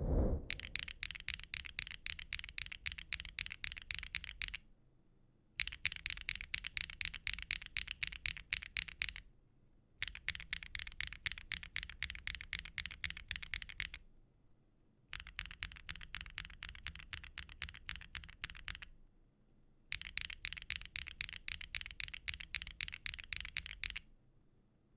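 Mechanical keyboard with HMX Saru V2 tactile switches on a gasket-mount Tofu65 3.0 with GMK keycaps being typed on rapidly in five bursts of about four seconds each, with brief pauses between. The keystrokes are clacky and fairly deep, and there is a low thump as it starts.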